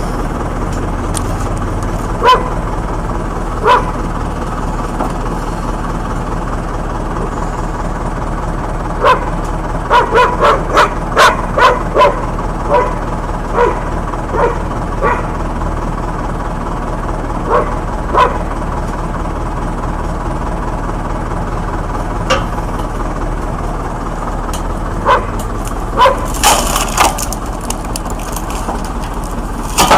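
A dog barking, with short sharp barks scattered through and a quick run of them in the middle, over a steady low machine hum. Near the end there is a louder noisy burst.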